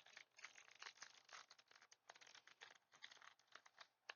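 Faint, irregular crinkling and crackling of a Pokémon trading-card booster pack's foil wrapper being handled and worked open by hand.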